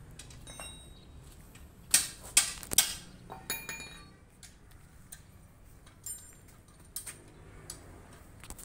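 Sharp metallic clanks and clinks of hand tools against steel suspension parts during a front suspension repair: a quick run of loud strikes about two seconds in, then scattered lighter clinks with a short ring after some of them.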